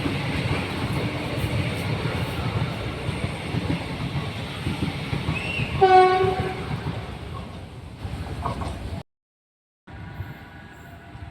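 Rodalies de Catalunya electric commuter train running past with a steady rumble. About six seconds in, it gives a short single-tone horn blast, the loudest moment. The sound cuts off abruptly and resumes more quietly with a steady whine.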